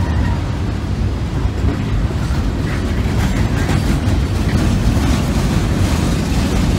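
Loaded steel gondola cars of a freight train rolling over a steel railroad trestle: a steady heavy rumble of wheels on rail, with light metallic clicks in the middle.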